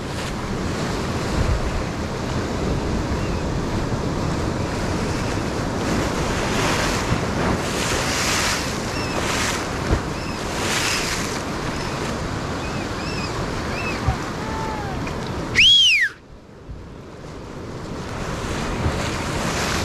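Surf breaking and washing on a beach, a steady rushing noise with wind buffeting the microphone. A short, high falling call cuts through near the end, just before the surf noise dips briefly and builds back up.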